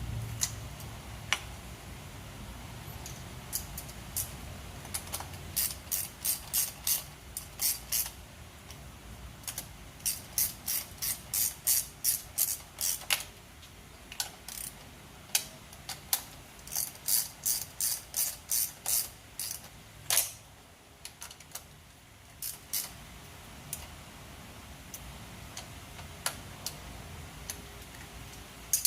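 Hand ratchet clicking in three runs of roughly four clicks a second, with scattered single clicks between, as spark plugs are wrenched in.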